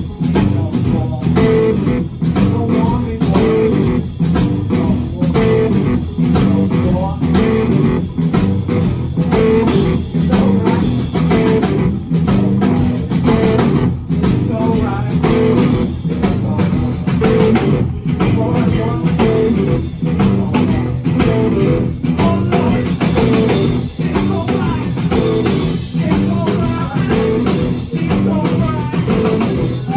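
Live blues band playing loudly: two electric guitars over a drum kit, with a steady beat.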